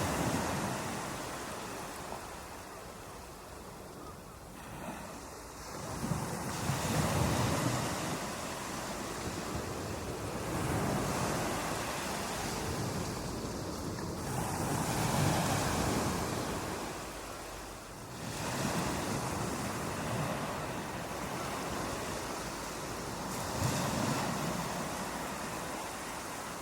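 Ocean surf: waves breaking on a beach and washing back, the rush swelling and fading in slow surges several seconds apart.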